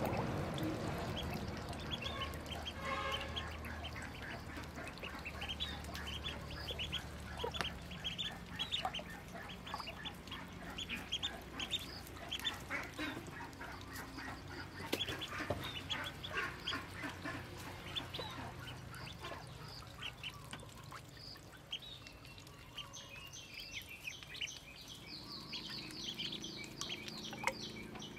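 A brood of ducklings peeping: many short, high calls overlapping continuously, with a run of faster, higher peeps near the end.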